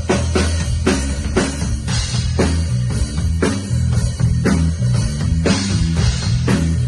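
PDP drum kit played in a steady rock beat along with a backing track of bass and guitar, with sharp drum hits about twice a second.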